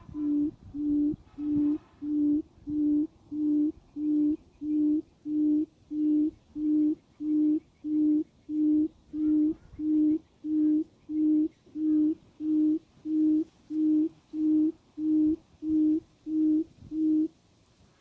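Recorded quail call played as a lure through a small MP3 player speaker: a steady, evenly spaced series of low hooting notes, about one and a half a second, that stops abruptly near the end.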